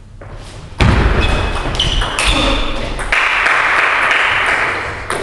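Table tennis rally on a wooden hall floor: a loud thump about a second in, then sharp ball-on-bat and table knocks with high shoe squeaks, followed by clapping for about a second and a half near the end.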